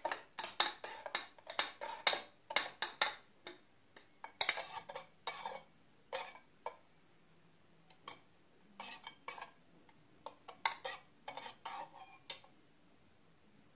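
A metal teaspoon stirring coffee grounds, sugar and water in a stainless steel cezve, clinking and scraping against the pot's sides in quick runs with short pauses. The stirring stops a second or so before the end.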